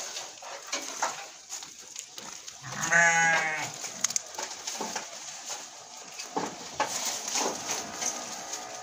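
A dairy goat bleats once, a wavering call of about a second, about three seconds in. Around it are the rustle of hay and scattered light knocks as the goats feed at a metal hay rack.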